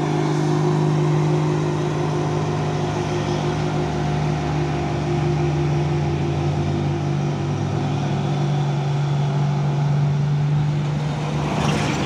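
Diesel engine of a heavily loaded tandem-axle cargo truck pulling under load at steady revs as it passes and drives away: a steady deep engine drone.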